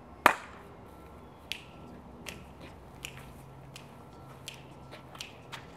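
Finger snapping: one loud sharp snap just after the start, then lighter snaps at a steady pace of about one every three-quarters of a second.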